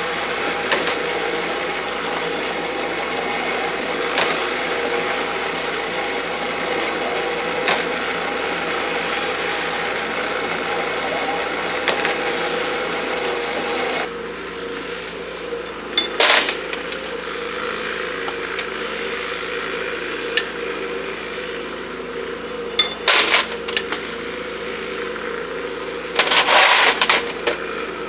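A small electric case-prep machine runs steadily, with a sharp click every few seconds as brass cases are handled. Then comes the steady hiss of propane torches on a Bench-Source case annealer, broken about three times by bursts of metallic clinks as annealed brass cases drop into its steel catch pan.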